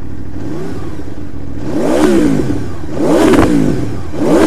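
2015 Aprilia Tuono V4R's V4 engine through its stock exhaust, revved while standing still from a high idle. There is a small blip, then three sharp revs, each rising and falling quickly, going up to about 9,000–9,500 rpm.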